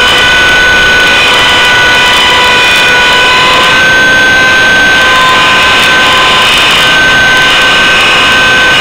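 Align T-Rex 600 radio-controlled helicopter in flight, heard from a camera mounted on the helicopter itself: a loud, steady high whine of its drive train and rotor, with the pitch shifting slightly up and down from about four seconds in.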